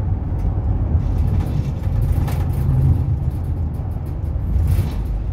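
Steady low rumble of road and engine noise heard inside a vehicle cruising on a freeway, with two brief swells of hiss, one about halfway through and one near the end.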